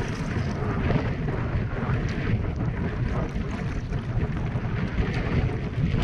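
Wind buffeting the microphone at the seaside, a continuous rumbling rush.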